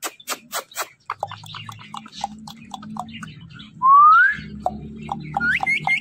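Indian ringneck parakeet making a run of quick clicks and short chirps, then a loud rising whistle about four seconds in, followed by more chirps and short rising whistles near the end.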